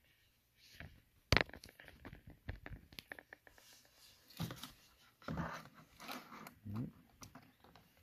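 A cardboard action-figure box being handled and opened: irregular clicks, taps and crinkles of cardboard and plastic packaging, the loudest a sharp knock about a second and a half in.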